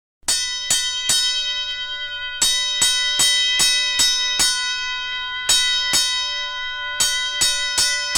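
A metal bell struck over and over in quick groups of strokes, each stroke left ringing so the tones overlap and hang on. It starts out of silence about a quarter second in.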